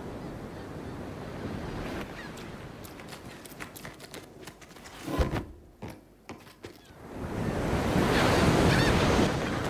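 Sound effect of rushing ocean surf that swells into a loud crashing wave over the last couple of seconds. A short thud comes about five seconds in.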